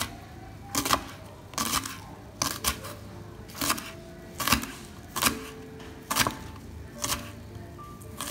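Kitchen knife slicing a spring onion on a wooden cutting board, each cut ending in a sharp knock of the blade on the board, about once a second.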